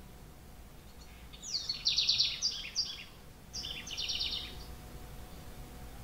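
House wren singing: two quick phrases of rapid trills mixed with short falling notes, the first starting about a second and a half in, the second just after it and a little shorter.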